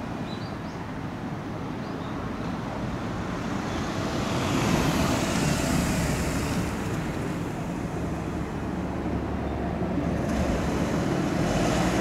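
A car driving past close by: tyre and engine noise swells to its loudest about five seconds in and eases off as it pulls away, over a steady traffic rumble that rises again near the end.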